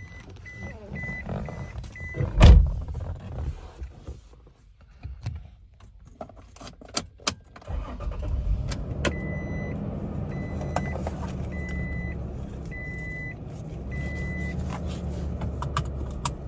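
Toyota Tacoma 4.0L V6 engine starting and settling into a steady idle, heard from inside the cab, about halfway through. Before it comes a single heavy thump, then a few clicks, and a dash chime beeps repeatedly before the thump and again, more slowly, while the engine idles.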